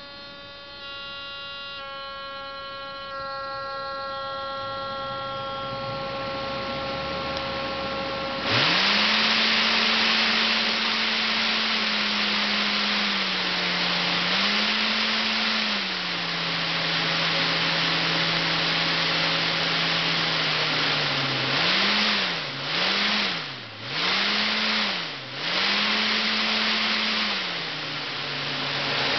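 DC motor spinning a propeller fan under a PWM speed controller. At first a whine of several steady tones that step up in pitch; about a third of the way in it jumps to a loud rush of air with a motor hum, whose pitch then falls and rises as the speed is changed, with several quick dips and recoveries near the end.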